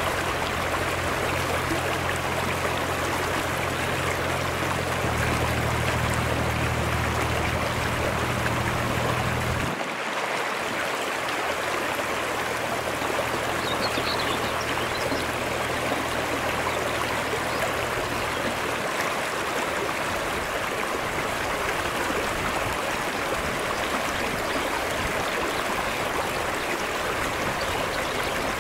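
Shallow mountain stream running over flat rock ledges: a steady, even rush of water.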